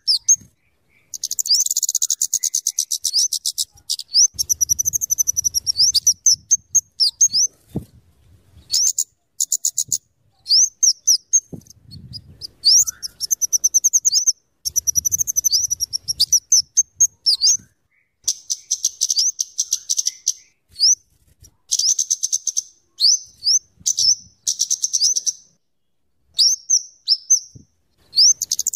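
Flowerpecker (kemade, cabe-cabean) singing: fast trains of thin, high ticking notes mixed with quick up-and-down whistled notes, in bursts of one to two seconds with short pauses between.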